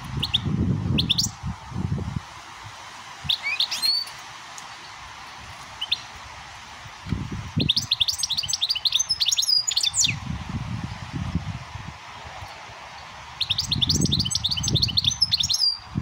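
European goldfinch singing 'switty' song: a few short calls, then two long runs of fast, rising twittering notes, one about halfway through and one near the end. Low rumbling noise comes and goes underneath.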